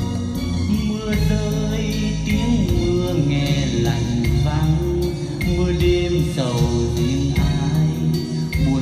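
A slow Vietnamese nhạc vàng ballad played back through a pair of JBL L100 Century loudspeakers, in an instrumental passage with guitar and bass between the sung lines.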